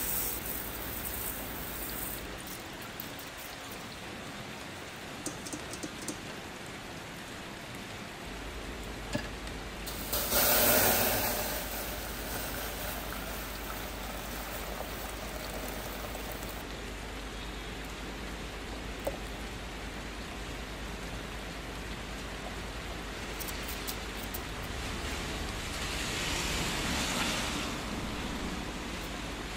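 Dry basmati rice poured from a steel cup into a hammered stainless-steel bowl, the grains hissing and pattering against the metal. About ten seconds later, and again more softly near the end, water is poured onto the rice to rinse it.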